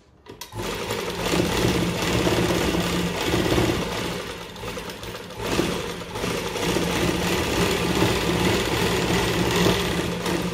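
Industrial single-needle sewing machine starting about half a second in and running at a steady fast stitch along a fabric edge, easing briefly about halfway, then picking up again.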